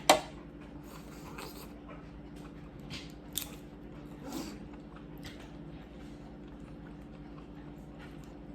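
Close-up chewing and biting of seafood, with a sharp loud click right at the start and a few smaller crunches and clicks around three to five seconds in, over a faint steady hum.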